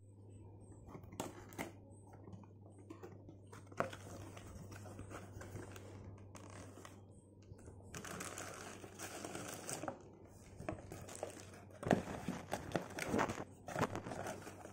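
Cardboard box flaps and a plastic bag rustling and crinkling as a clothes iron wrapped in plastic is handled and taken out of its box, with scattered light taps and clicks. The rustling is densest about two thirds of the way through and again near the end.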